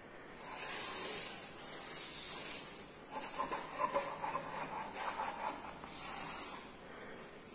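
Paintbrush bristles rubbing and scraping over paper in strokes: two long hissing swishes, then a scratchier, crackling stretch in the middle.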